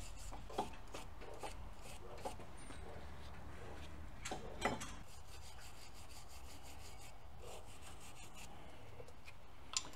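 Hand wire brush scrubbing rust off the pad-hardware tracks and slide areas of a steel brake caliper bracket, in repeated short rasping strokes, with a few louder scrapes.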